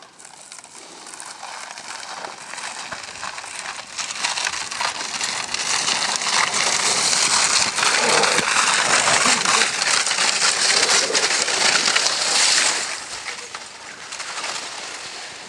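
A steering sled sliding down an icy, packed-snow run, its runners and base scraping over the ice. The scraping builds over the first few seconds, stays loud for several seconds, then drops off sharply near the end.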